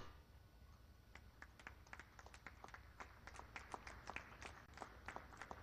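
Faint, scattered hand clapping from a few people. It starts about a second and a half in and grows a little denser.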